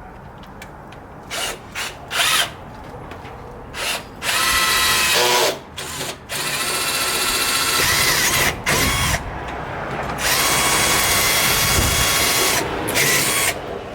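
Power drill with a small bit drilling a pilot hole for a hood pin: a few short trigger blips, then several longer runs of the motor whining with brief stops between them.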